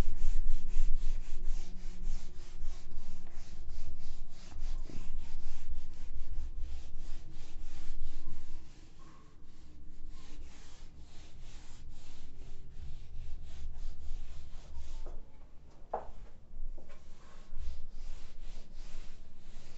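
Handheld board duster scrubbed back and forth across a whiteboard, a quick run of rubbing strokes several times a second; the strokes turn softer about nine seconds in.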